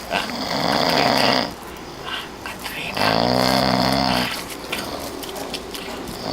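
A man snoring: two snores, each over a second long, about three seconds apart, with the next one beginning at the end.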